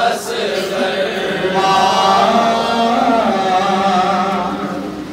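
Male voices chanting a noha, a Shia lament in Urdu, into a microphone, drawing out long held notes; the line fades near the end.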